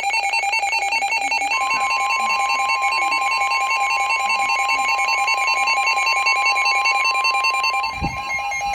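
Weather radio alert: a rapid, evenly pulsing electronic beep. About a second and a half in, the steady single-pitch NOAA Weather Radio warning alarm tone joins it, the signal that a warning message is about to follow.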